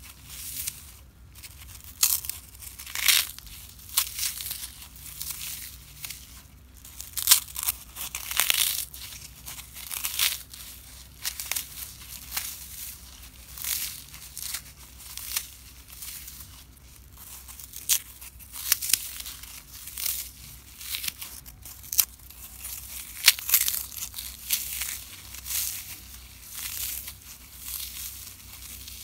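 Dry, unsoaked floral foam crushed and crumbled by hand: a string of irregular, crisp crunches, one every second or so.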